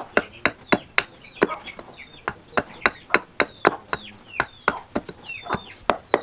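Small hatchet blade chopping down into a wooden handle blank on a wooden block, paring it to shape with quick sharp chops, about three a second. Chickens cluck in the background.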